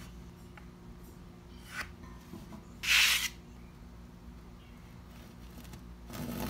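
A short scraping clatter of tools being handled about three seconds in, then near the end a Craftsman fine-finish hand saw starts its first stroke into a trim board at the pencil line.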